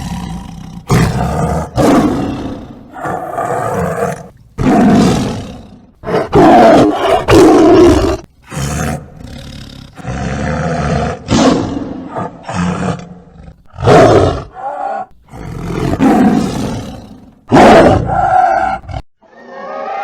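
A rapid series of loud animal roars and growls, about a dozen calls laid back to back, each starting and cutting off abruptly.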